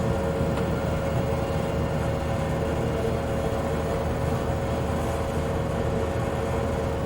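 Bowling alley room tone: a steady low rumble with a constant hum, in the manner of lanes, pinsetter machinery and ventilation running.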